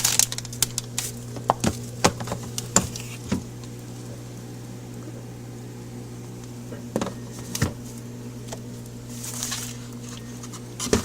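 Food containers and packages being handled and moved around in a refrigerator: scattered sharp clicks and knocks, bunched in the first few seconds and again about seven seconds in, with a brief rustle later, over a steady low hum.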